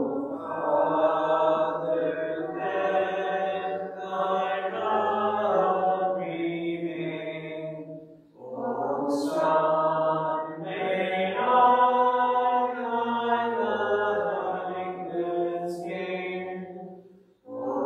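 Congregation singing a slow hymn: long held notes in two phrases, with a short break for breath about eight seconds in.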